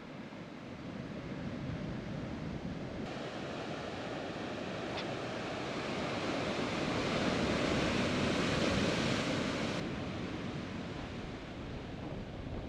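Sea surf surging and breaking against black lava rocks. The wash swells to its loudest about eight seconds in, then eases off.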